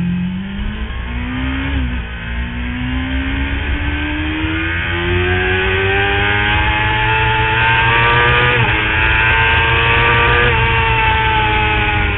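Motorcycle engine pulling hard through the gears at track speed, its pitch climbing steadily with short gear-change breaks about two seconds in and again near two-thirds of the way, then easing slightly near the end.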